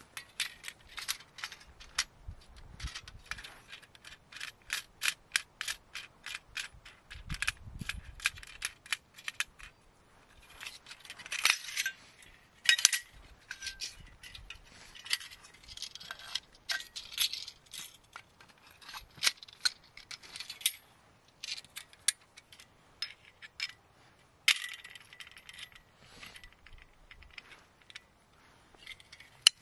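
A folding bow saw being unfolded and assembled: metal clicks and clinks from its frame and blade. A quick run of regular clicks, about three a second, fills the first ten seconds, then come scattered, louder clinks and rattles.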